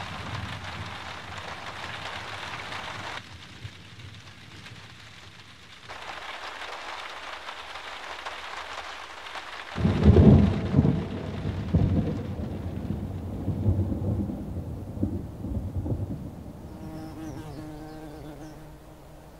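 Steady hiss of rain, which drops away for a few seconds about three seconds in and then returns. About ten seconds in, thunder breaks out in a long rolling rumble, loudest at its start and dying away over several seconds.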